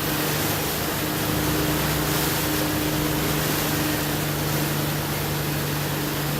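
A steady machine hum, holding one low pitch, over a constant rushing noise.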